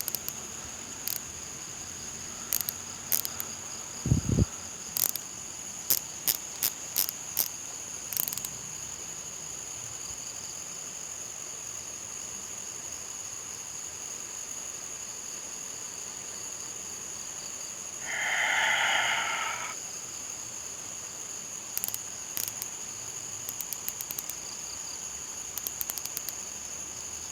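Crickets chirring steadily in a high, unbroken tone, with scattered sharp clicks and ticks in quick runs, a single low thump about four seconds in, and a brief rushing noise lasting about a second and a half around eighteen seconds in.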